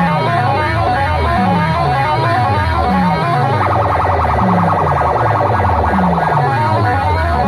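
Loud music played through a DJ sound system, with a falling bass sweep repeating about every second and a half under a wavering, siren-like upper line.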